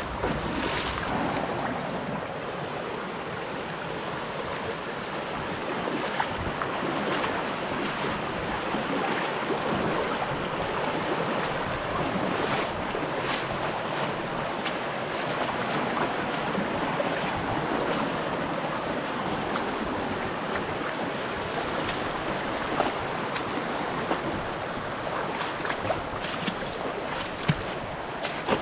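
Shallow mountain creek running over gravel and stones: a steady rush of water with a few small clicks and splashes here and there.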